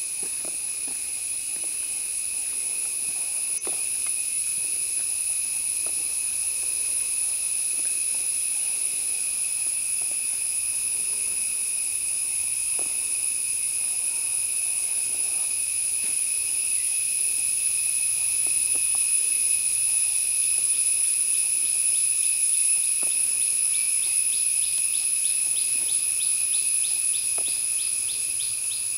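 Steady, shrill chorus of insects droning at several pitches at once. Near the end a fast pulsing call joins in.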